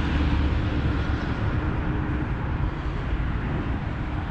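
Wind buffeting the microphone, a steady low rumble, with a faint steady hum through the first two seconds.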